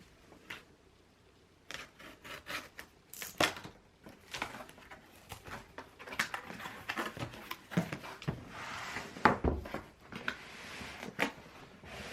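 Household handling sounds: a run of small clicks and knocks, getting busier after the first couple of seconds, with rustling joining in during the second half.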